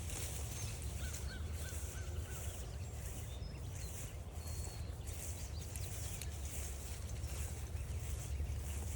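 Wild birds calling and singing along a woodland trail: high thin songs come and go about once a second, and a short run of four quick chirps sounds just after a second in. A low steady rumble lies underneath.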